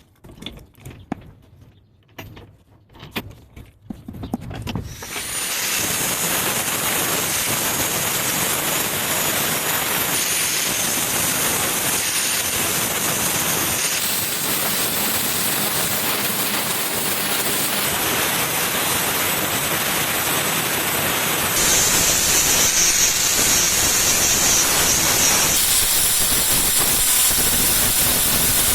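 A few light clicks and knocks, then about five seconds in a steady hiss of compressed air starts and keeps going; it gets louder and brighter about three quarters of the way through.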